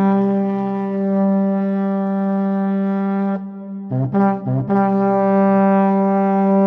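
A long wooden horn blown in a low, steady held note that breaks off about three and a half seconds in, followed by two short blasts and then a second long held note.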